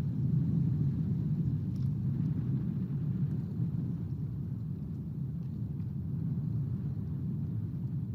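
Wind buffeting the nest-cam microphone: a steady low rumble.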